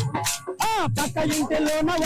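Folk song for a kolatam stick dance: a singing voice over sharp clicks about four a second, the voice swooping up and down in pitch about a second in.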